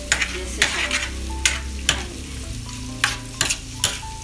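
Metal spoon stirring and scraping liver masala gravy across a flat tawa griddle, about seven short scrapes with a pause in the middle, over the sizzle of the frying gravy.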